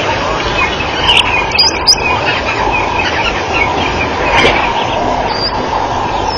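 Scattered high chirping calls over a steady hiss, with a few sharp clicks between one and two seconds in.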